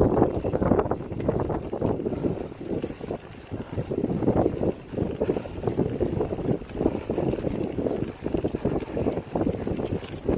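Wind buffeting the microphone of a camera riding on a recumbent cycle in motion, a rough, uneven rumble that comes and goes in gusts.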